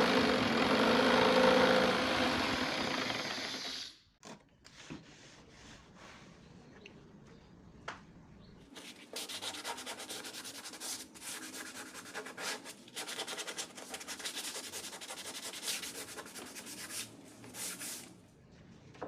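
An electric power tool runs loudly and stops about four seconds in. From about nine seconds in, fast scratchy rubbing strokes on wood, as in sanding, go on for about nine seconds.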